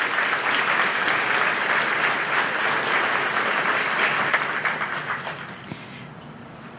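Audience applauding, a dense patter of many hands clapping that dies away about five to six seconds in.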